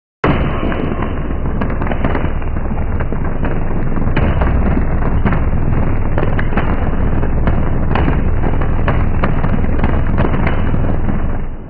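High-voltage short-circuit arc on a power-line tower: it strikes suddenly, then burns as a loud, continuous, buzzing noise full of sharp cracks for about eleven seconds, and cuts out abruptly near the end.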